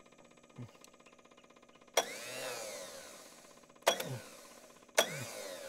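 Starter motor of a Kubota D662 three-cylinder diesel, energised by a screwdriver jumped across the terminals, in three short bursts: each starts with a sharp snap and a whirring that rises and falls away within about a second.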